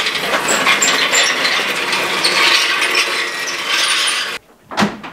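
Steel engine hoist with a Buick 364 Nailhead V8 hanging from it being pushed on its casters across a concrete floor: continuous clattering and rattling that stops abruptly about four seconds in. A single slam follows near the end.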